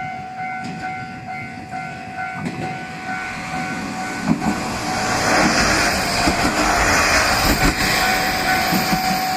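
Japanese level-crossing warning bell ringing in a steady repeating pattern, about two strokes a second. From about halfway in, a Yodo Line diesel railcar passes over the crossing and its running noise grows loud over the bell.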